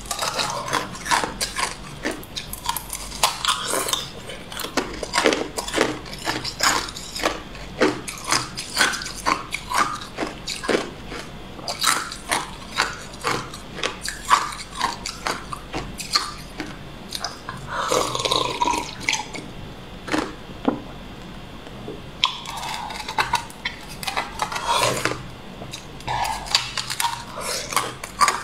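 Hard ice being bitten off a red frozen block and crunched between the teeth: a dense, irregular run of sharp cracks and crunches.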